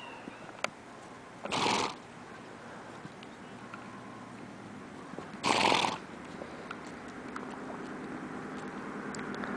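A horse snorting twice, short blows of air through the nostrils about four seconds apart.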